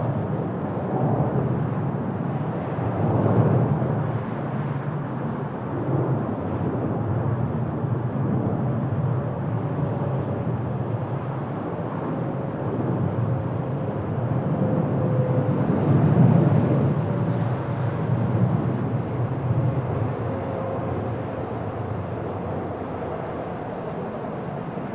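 Boeing 737-800 airliner's CFM56-7B jet engines rumbling as it comes in to land, with a faint steady whine that drifts slightly lower midway. The rumble swells about three seconds in and again around sixteen seconds.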